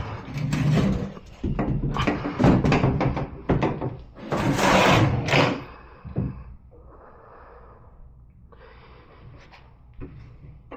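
Repeated knocks and clatter from a pickup tailgate and its hinge parts being handled and worked into place. Loudest for the first six seconds, then much quieter.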